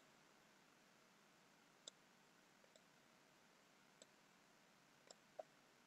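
A handful of faint computer mouse button clicks, irregularly spaced, against near silence.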